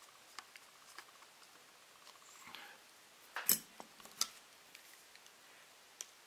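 Small metal clicks and knocks of a screwdriver and pliers working on the aluminium gearbox housing of an angle grinder. A brief scrape comes about two and a half seconds in, then two sharp knocks a little past the middle, the loudest sounds here.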